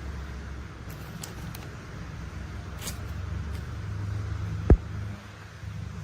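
A low, steady engine-like rumble of a construction-machine sound effect, swelling slightly past the middle. Over it come a few faint clicks of toy vehicles being handled, and one sharp knock near the end.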